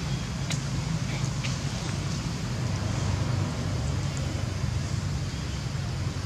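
Steady low rumble with an even hiss above it, and a few faint clicks in the first two seconds.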